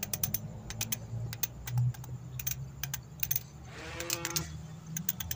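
Socket ratchet clicking in short, irregular runs as it turns down the retaining bolt of a gearbox's speed sensor. A brief pitched sound comes about four seconds in, over a steady low hum.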